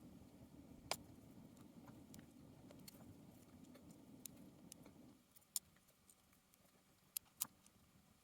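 A few sharp, tiny metallic clicks as small lock pins and springs are handled while being loaded back into a padlock core, over a faint low hum that stops about five seconds in.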